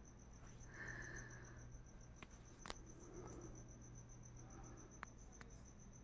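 Faint cricket chirping: a steady, high-pitched pulse at about ten chirps a second. A few faint clicks come through, the sharpest a little before the three-second mark.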